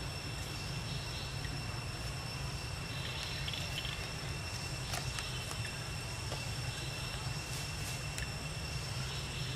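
Insects, likely crickets, chirring steadily, a constant high tone over a low outdoor rumble, with a couple of faint clicks about halfway and near the end.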